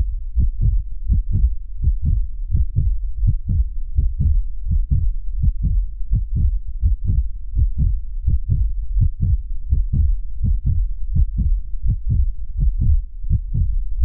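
Heartbeat sound: low double thumps (lub-dub) repeating steadily, somewhat faster than once a second.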